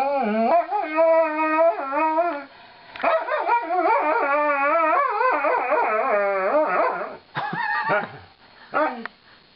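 Alaskan malamute howl-talking in long, wavering 'woo' calls, then a few short ones near the end. It is the dog's grumbling protest at being brushed.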